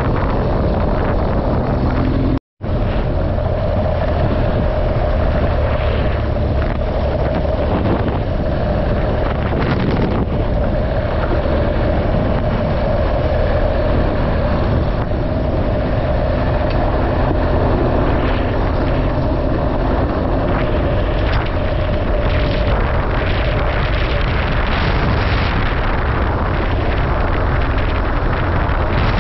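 Steady running noise of a vehicle on the move, heard from on board: engine, road and wind noise with a steady hum. It cuts out briefly about two and a half seconds in.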